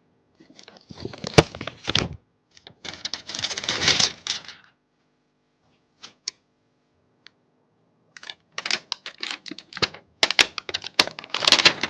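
Computer parts being handled and fitted by hand: bursts of rapid clicks, taps and scraping, with a lull of a few scattered ticks in the middle.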